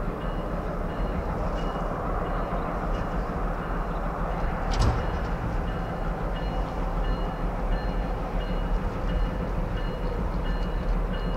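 Cascade and Columbia River Railroad freight train running past with a steady rumble, and one sharp clank about five seconds in.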